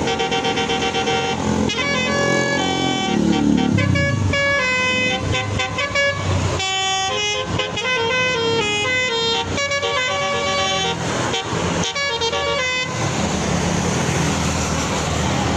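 Indonesian 'telolet' bus horn, a multi-tone musical air horn, playing a quick stepped melody of changing notes over traffic noise. The horn stops about 13 seconds in, leaving engine and traffic rumble.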